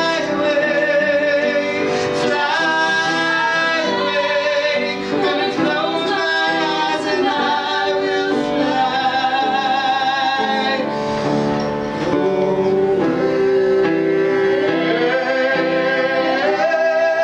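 Music: a sung melody with held, wavering notes over instrumental accompaniment.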